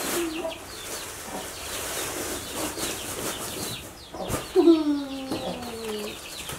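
Faint chirping in the background, then about four seconds in a loud, drawn-out animal call that falls in pitch and lasts about a second and a half.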